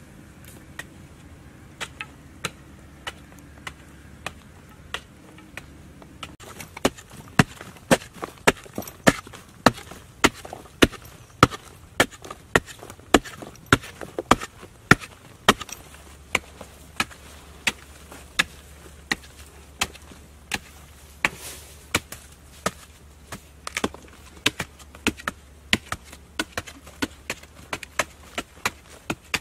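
Hand digging tools repeatedly striking and chopping into a hard-packed earth bank. The blows are sparse at first, then come fast and uneven at about two to three a second, as two diggers work at once, loudest in the middle.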